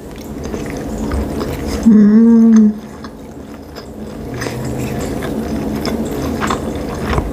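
Close-miked chewing of a sushi roll: soft moist mouth sounds and small clicks. About two seconds in there is one short, loud hum from the voice.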